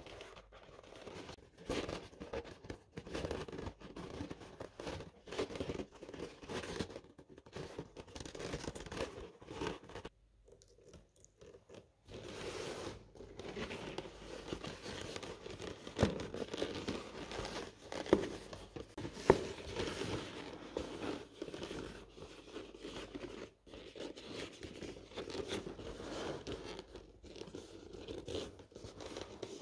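Leather being handled: hands flexing, squeezing and rubbing a leather bucket bag, giving an irregular crinkling and rustling, with a short pause about ten seconds in and a few sharp clicks a little past the middle.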